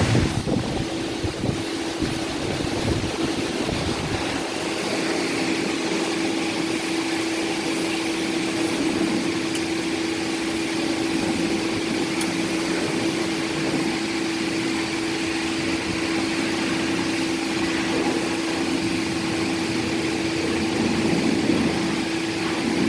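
Refrigerant vacuum pump running steadily with a constant hum, evacuating a car's air-conditioning system after a new compressor has been fitted.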